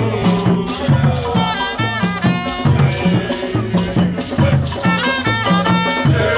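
Borborbor dance music with a steady, repeating bass beat, percussion and singing voices.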